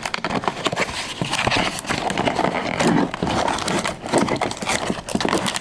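Cardboard Funko Mystery Minis blind box being torn open by hand: a dense run of crackling, tearing and tapping of cardboard and packaging.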